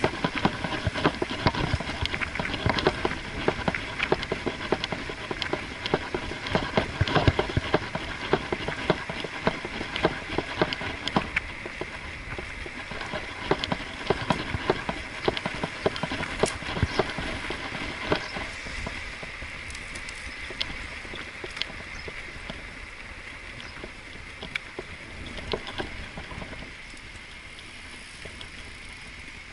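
Riding noise picked up by a bicycle-mounted camera: a dense, irregular rattle of clicks and knocks from the bike and camera mount as it rolls over the road, over a steady rolling hiss. The rattle thins out over the last third.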